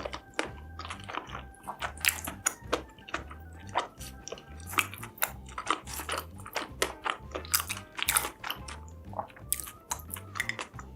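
Food being bitten and chewed with many irregular sharp crunches, over background music with a steady low beat.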